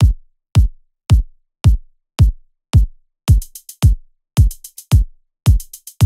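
Electronic drum-machine beat from FL Studio: a deep kick drum with a falling pitch on every beat, a little under two a second. About three seconds in, quick runs of high hi-hat ticks join between the kicks.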